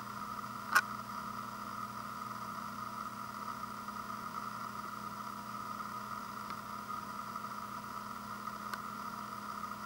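Steady background hum with a sharp click about a second in and a couple of faint ticks later.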